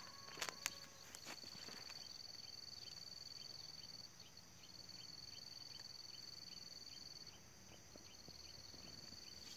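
Faint, steady high-pitched insect trill, typical of a cricket, that breaks off briefly twice, with a soft ticking about twice a second beneath it. A few light clicks, like dry stalks crackling underfoot, near the start.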